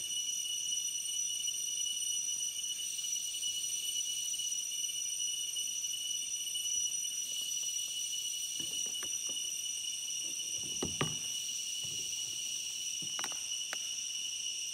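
A steady, high-pitched drone of insects from the forest, unbroken throughout. A few faint knocks come over it, most of them a little past the middle and a couple near the end.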